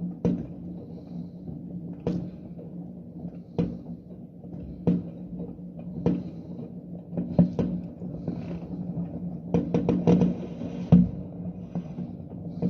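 A steady low rumble with irregular sharp knocks and clatters over it, a quick run of them about ten seconds in.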